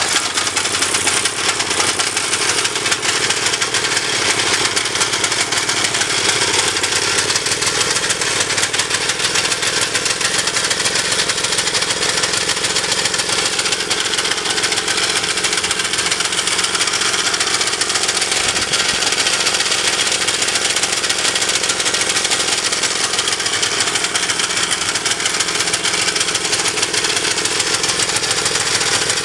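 Honda F200 Komame mini tiller's small engine running steadily at an even speed with a fast, rattly beat, the restored junk engine now running.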